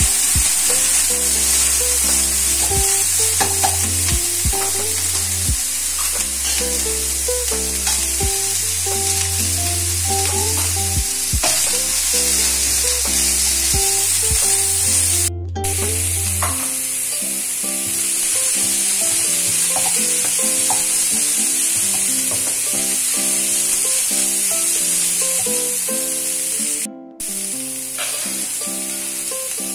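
Minced pork and vegetables sizzling in a nonstick wok while a wooden spatula stirs and scrapes the pan. Background music with a melody and bass line plays along. The sound drops out briefly twice.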